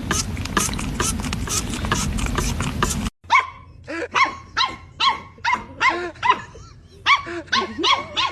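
A steady loud noise with regular ticks cuts off sharply about three seconds in. A dog then barks repeatedly: short, high yelping barks, about two a second.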